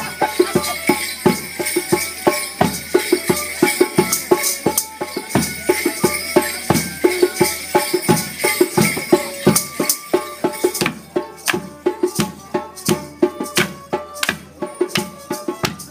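Lively folk music for morris dancing: a melody line over a steady percussive beat. From about eleven seconds in, the melody drops back and sharp wooden clacks stand out, the dancers' sticks clashing in time.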